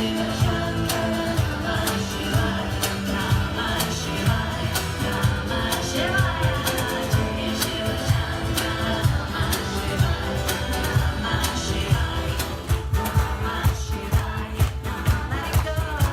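Live devotional band music: a steady drum beat under singing, the drumming getting busier about three quarters of the way through.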